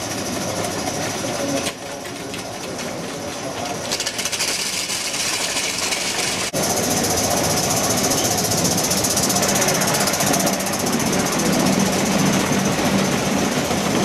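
Model trains running on layout track: a steady, fast mechanical clatter of wheels and drive. It changes suddenly and gets louder about six and a half seconds in.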